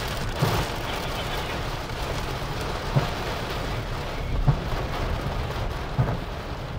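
Heavy rain beating on a car's roof and windows, heard from inside the cabin over a low rumble, with a few sharper knocks from bigger hits on the body.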